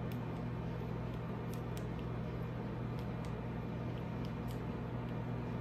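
Microwave oven running: a steady low electrical hum with a few faint clicks.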